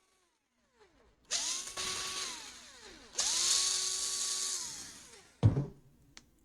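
Small electric screwdriver run twice, each a whine that rises, holds steady, then winds down, driving out the laptop's heatsink screws. A short knock follows about five seconds in.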